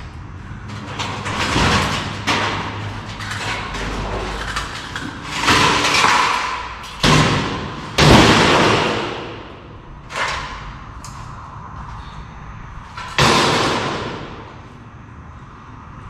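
A series of bangs and thuds with rustling and scraping noise between them; four of the bangs are sharp and fade out slowly.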